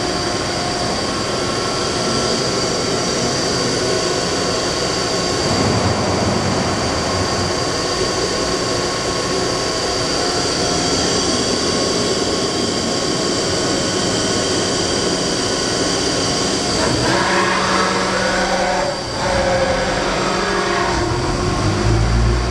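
Milltronics RH19 CNC vertical machining center running: a steady mechanical drone with a high-pitched whine. About three-quarters of the way through, tones slide up and down, and a low rumble comes at the very end.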